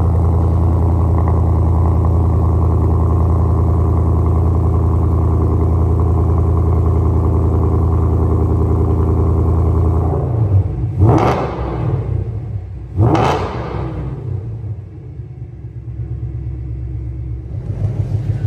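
Ford Mustang Dark Horse's 5.0 L Coyote V8 idling through KOOKS headers, a full 3-inch exhaust and an AWE SwitchPath exhaust, a steady, deep note. About eleven seconds in it is revved twice in quick succession, each rev climbing and dropping straight back, then it settles back to a quieter idle.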